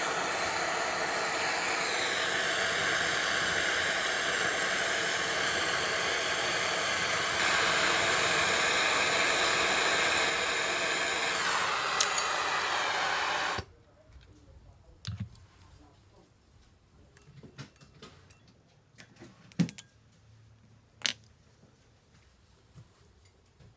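Handheld gas torch burning with a steady hiss while heating a copper clay piece, cut off suddenly after about fourteen seconds. Then a few light clicks and taps of tweezers against a glass dish as the fired piece is quenched.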